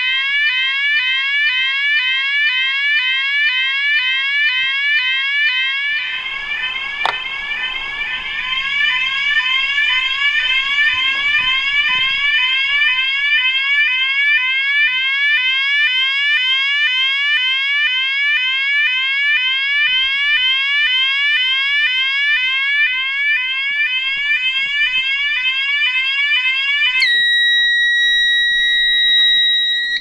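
Vantage 32-tone Combi sounder/beacon sounding a medical alarm set off by a medical pull station: a loud, rapidly repeating rising sweep tone. A few seconds before the end it switches to a steady continuous tone, then cuts off.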